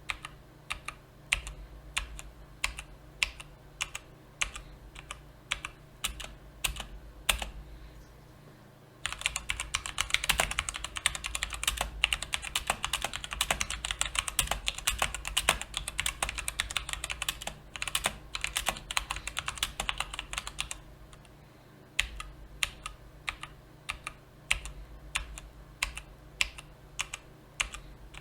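Mechanical keyboard with tactile brown switches being typed on: single key presses at about two or three a second, then a stretch of fast continuous typing from about a third of the way in to about three quarters through, then single presses again.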